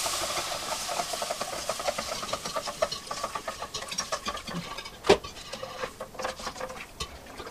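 A whisk beating fast against a pan, working milk into a butter-and-flour roux for gravy, with a quick run of scraping clicks that thins out later; one louder knock about five seconds in.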